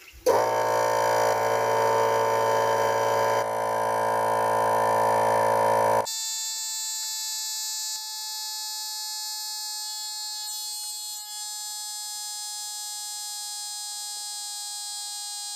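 Twin-cylinder 12V portable car tyre inflator, running from a Parkside tool battery, switched on and running steadily with a buzzing hum as it pumps air into a car tyre. About six seconds in, the sound jumps abruptly to a much higher-pitched steady whine, the same compressor heard in fast-forwarded footage.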